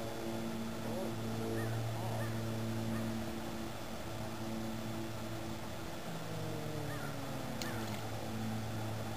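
A steady motor hum that slides down in pitch about six seconds in, with a few faint short chirps and a sharp click near the end.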